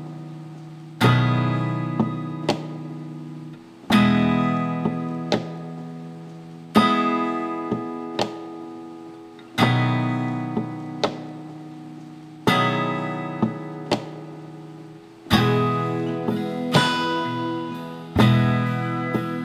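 Background music: an acoustic guitar strumming a chord about every three seconds and letting it ring out, with lighter single notes in between.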